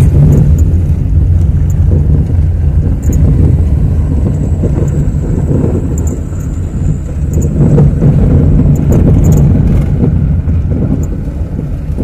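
A motor vehicle on the move, with a steady low engine and road rumble.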